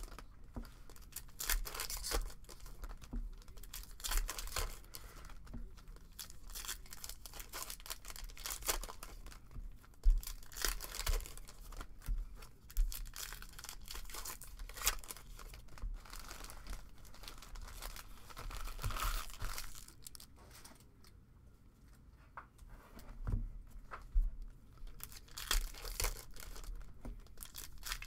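Foil trading-card packs (Upper Deck SP Authentic Golf) being torn open by hand, the foil wrappers crinkling in irregular crackles with one sharp louder rip about ten seconds in. It goes quieter for a few seconds about two-thirds of the way through.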